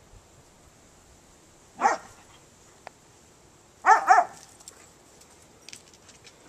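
Dog play-barking: one bark about two seconds in, then a quick double bark about four seconds in.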